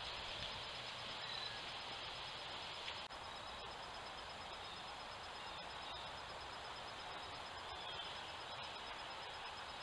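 Steady outdoor hiss picked up by a trail camera's microphone, with a faint electronic whine and a few faint high bird chirps.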